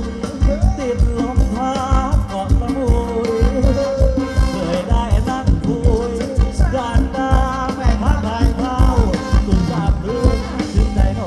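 Thai ramwong dance music played by a band: a bending melody line over a quick, steady drum beat.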